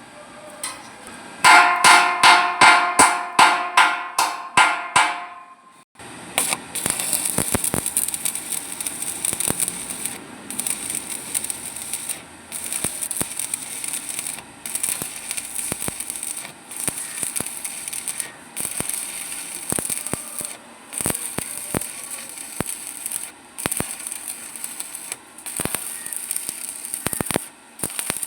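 About nine ringing strikes on metal in quick succession, then electric arc welding: a steady crackling sizzle broken by short pauses every second or two as the arc is stopped and restruck.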